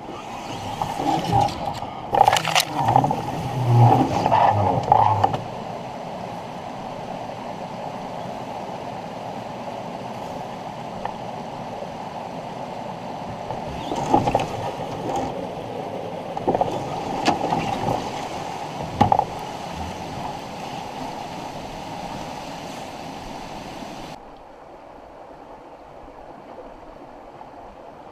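Dry grass and willow branches rustling and scraping against a canoe as it is hauled along a riverbank, in loud clattering spells over a steady rushing noise. Near the end the sound drops to a quieter trickle of meltwater running off a thawing ice shelf.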